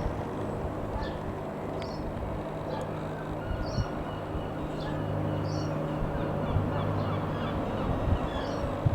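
A bird calling repeatedly, short high calls about once a second, over a steady low drone.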